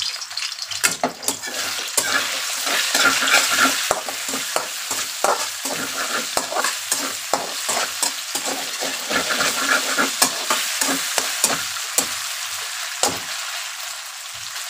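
Marinated boneless chicken pieces sizzling in hot oil in a large metal kadhai on high heat, with a steady hiss. A metal slotted spatula scrapes and taps against the pan many times as the pieces are stirred.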